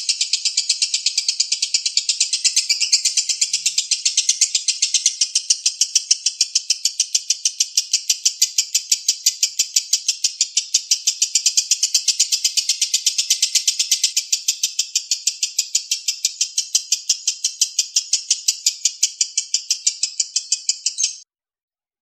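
Lovebird giving a long, unbroken ngekek, a rapid high-pitched 'kek-kek-kek' chatter of many notes a second. Bird keepers call this konslet: the song runs on without pausing. It stops abruptly near the end.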